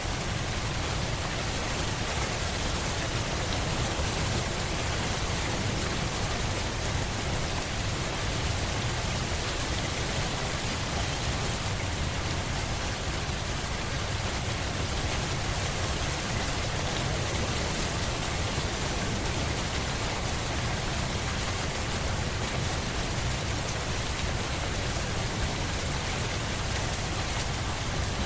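Steady rain falling on surfaces, an even hiss of many drops.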